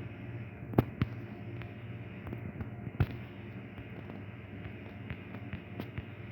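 A few sharp clicks over a steady low hum: two close together about a second in, a louder one about three seconds in, and fainter ticks in between.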